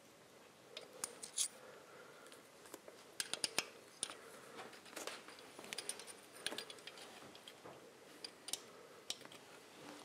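Light, irregular metallic clicks and taps of steel pushrods and small tools against the Triumph Tiger 100's cylinder head as the pushrods are fed down and seated in their tappets.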